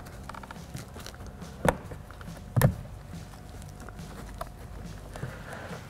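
Plastic door trim piece being handled and fitted onto the door panel: light rustling and small clicks, with two sharp knocks about a second apart.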